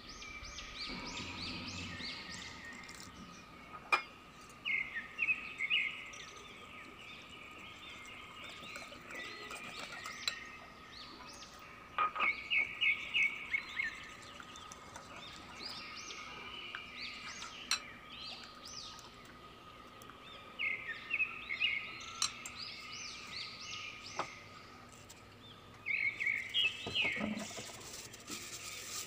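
Small birds chirping in repeated quick series of short high notes, over a steady faint hum. There are a few isolated clicks, and a brief low rumble in the first couple of seconds.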